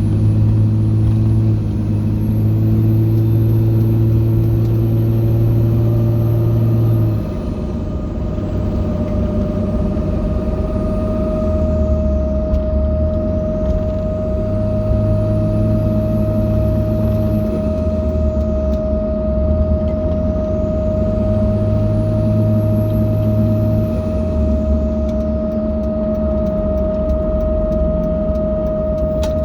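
2005 Dodge Ram 2500's Cummins diesel running with a steady humming whine that sets in several seconds in and holds. A faint high whistle rises and falls about four times as the engine note shifts.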